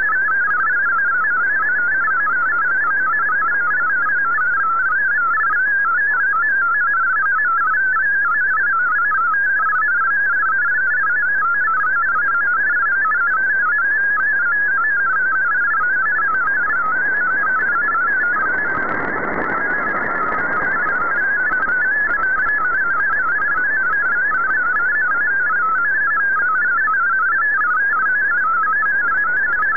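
A shortwave digital text-mode (MFSK) data signal received on an AM radio: a steady warble of rapidly stepping tones, which Fldigi is decoding into text. About two-thirds through, a swell of static hiss rises briefly beneath the tones as the signal fades.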